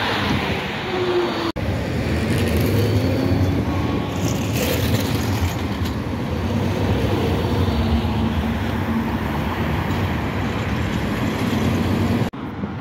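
Bombardier Cityrunner low-floor tram running past close by: a steady rumble of wheels on rail, with a faint motor whine that rises and falls, over road traffic. The sound cuts out for an instant twice, about a second and a half in and near the end.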